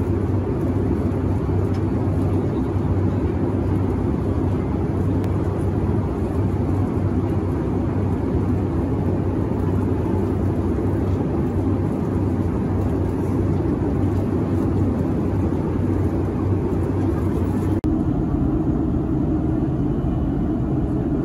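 Steady in-flight cabin noise of a Boeing 757-300: a low rumble of engines and airflow through the fuselage. It drops out for an instant about 18 seconds in and resumes with a slightly different, less humming tone.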